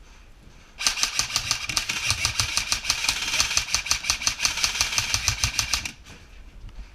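Airsoft rifle firing one long full-auto burst that starts about a second in and stops about a second before the end, a fast steady train of clicks.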